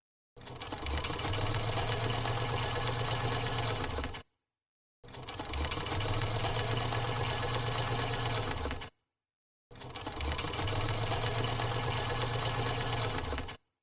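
Sewing machine running in three bursts of about four seconds each, with a rapid ticking of the stitching mechanism over a low hum that rises a step in pitch as it gets up to speed; each burst stops suddenly, with a short silence between them.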